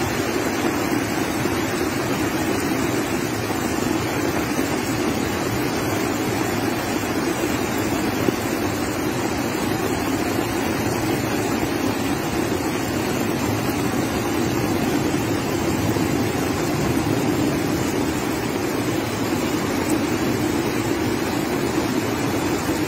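Flash flood of muddy water rushing past in a broad torrent: a loud, steady rush of water noise that holds without a break.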